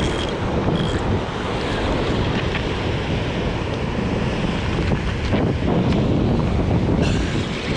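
Ocean surf washing over the rocks below, with wind buffeting the microphone. It makes a steady, heavy rumble.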